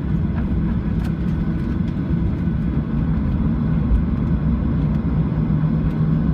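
Steady cabin noise of a Boeing 737-700 with its engines running, heard from inside the economy cabin: a low rumble with a steady hum and a few faint clicks.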